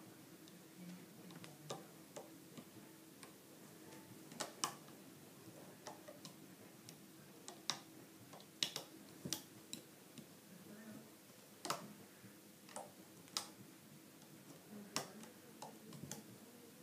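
Light, irregular clicks and taps of a plastic hook tool against a plastic bracelet loom as rubber loom bands are picked up and hooked over its pegs.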